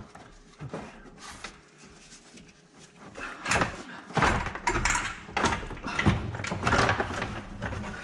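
Old radiator being wrestled up out of the engine bay, scraping and knocking against the fan shroud, fan and A/C condenser as its clips catch. It is quiet with a few clicks at first, then loud scraping and knocking from about three and a half seconds in.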